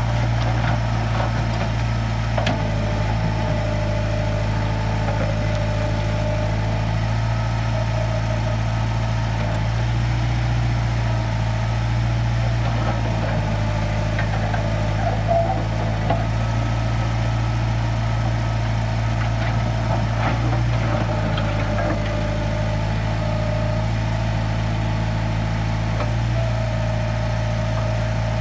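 Diesel engine of an International Harvester backhoe loader running steadily under work, with higher tones that come and go and a few scattered knocks.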